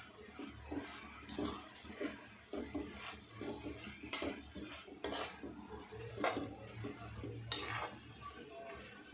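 Spatula stirring amaranth greens and onions in a metal kadhai: soft rustling of the leaves broken by irregular sharp clinks and scrapes of the spatula against the pan.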